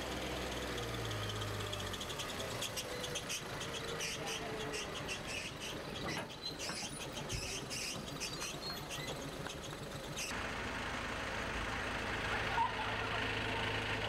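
Small tourist tram's engine running as it drives past, with birds chirping in the background. The engine hum drops away about two seconds in and a steady low engine hum returns about ten seconds in.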